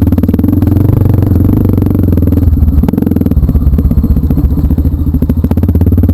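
Motorcycle engine running under way, a steady rapid pulsing of exhaust note, typical of a trail bike being ridden.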